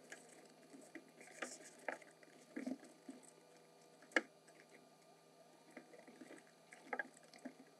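Faint, scattered rustles and soft taps of a roll of foil-faced floor soundproofing insulation being unrolled and smoothed down on the cabin floor, with one sharper click about four seconds in.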